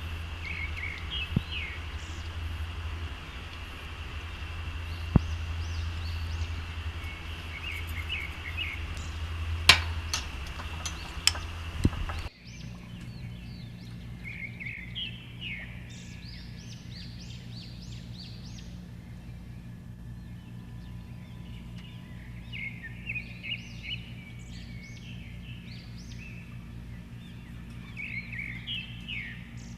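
Birds chirping in short clusters. For the first twelve seconds a low hum and a few sharp clicks run under them; then the background changes abruptly.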